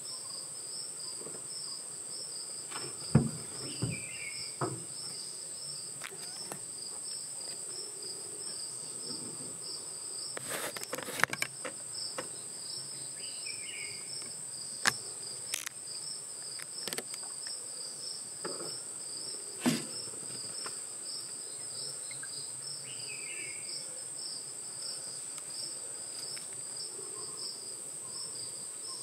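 Steady chorus of forest insects: a continuous high shrill with a fast-pulsing trill just below it. Several sharp knocks cut through it, the loudest about three seconds in and a cluster around eleven seconds, and a short high chirp comes three times.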